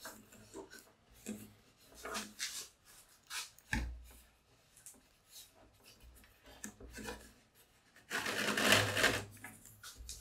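Handling noises as a homemade shop vac's plywood lid and wooden motor housing are turned over by hand: scattered light knocks and rubs of wood, with a louder scraping rustle about eight seconds in.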